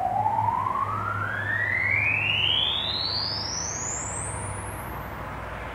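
A single pure tone rising smoothly and steadily in pitch, from a low hum-like note to a very high whistle that climbs out of hearing near the end, over a steady low background hum.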